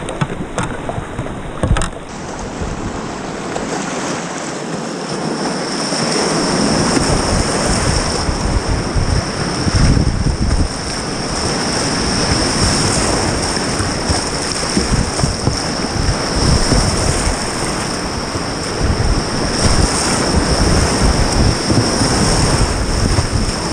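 Whitewater rapids rushing and churning around a kayak running a rapid, the rush growing louder about six seconds in as the boat enters the white water, with wind buffeting the microphone.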